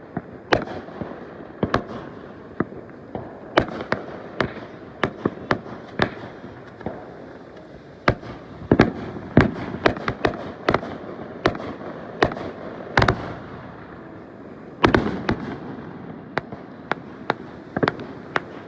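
Fireworks going off: an irregular run of sharp bangs, a dozen or more, some in quick clusters, over a continuous crackle and rumble between the bangs.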